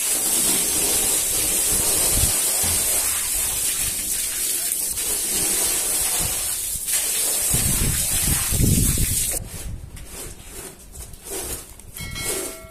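A jet of water spraying and splashing onto a mud-caked rug, a steady hiss with heavier splashing shortly before it stops. About nine seconds in the water cuts off suddenly, and a squeegee then scrapes across the soaked rug in quieter strokes.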